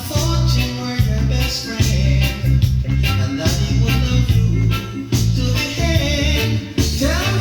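Reggae music with a heavy, pulsing bassline and a sung vocal line, with a short rising glide near the end.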